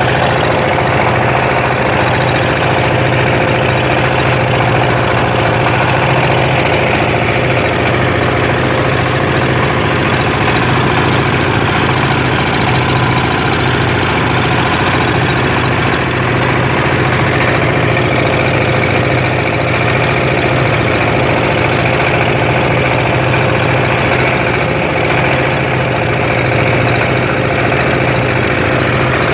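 Wooden river boat's engine running steadily under way, a loud, constant drone with a steady low hum.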